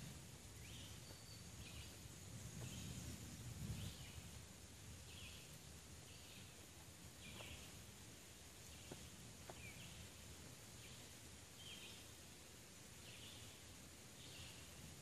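Faint forest ambience: a bird repeats a short high call about once a second over a steady high insect drone. A soft low rumble swells about three seconds in.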